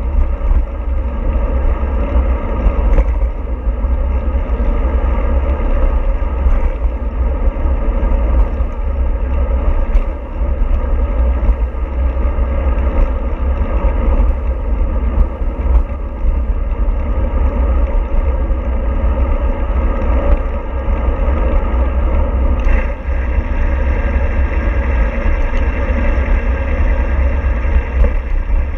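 A vehicle in motion: steady engine and road rumble.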